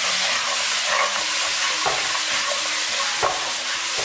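Pig trotters sizzling in hot caramelized rock-sugar syrup while being stir-fried, with a steady hiss of frying. A spatula scrapes and knocks against the pan a few times as the pieces are tossed to coat them in the caramel.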